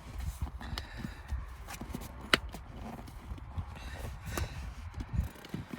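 Scattered, irregular clicks and knocks of hands working a seat cover onto a truck headrest, pushing its plastic edge bar into the channel, with one sharper click a little past two seconds in.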